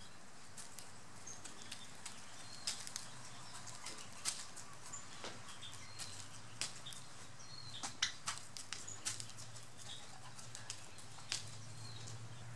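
Wild turkey pecking grain from a bowl: irregular sharp taps and clicks of the beak, now single, now in quick clusters, over a steady low hum.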